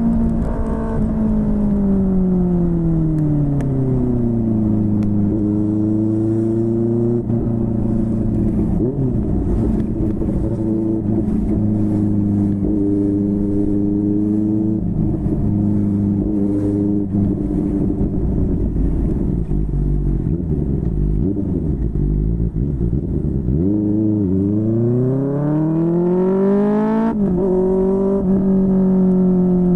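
QJMotor SRK600's inline-four engine running through a Yoshimura R11 exhaust under a rider. The revs fall over the first few seconds, hold fairly steady for a long stretch, then climb and drop sharply at a gear change near the end.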